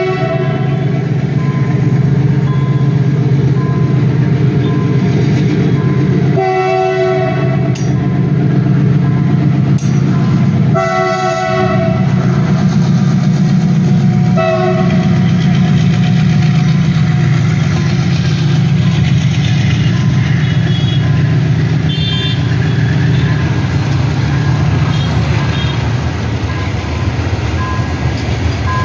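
WDG-6G diesel locomotive hauling a goods train, its engine running with a steady low rumble. It sounds its horn in short blasts: near the start, about six and a half seconds in, and about eleven seconds in, with a weaker one near fifteen seconds.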